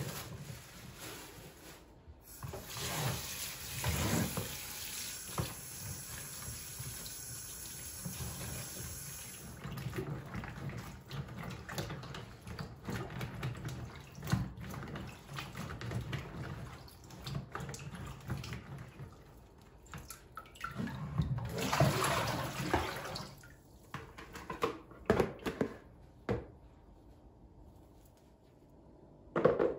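Water running from a kitchen tap into a sink for several seconds, followed by clicks, knocks and another short splash of running water as things are handled in the sink.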